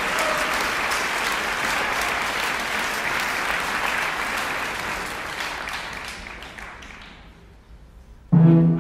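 A theatre audience applauding after a ballet solo, the clapping dying away over the last few seconds. Near the end the orchestra strikes up abruptly, with strong low string notes.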